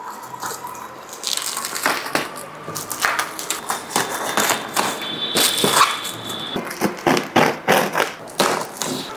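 Plastic stretch wrap being snipped with scissors and pulled off a cardboard box, crinkling and crackling in quick irregular rustles.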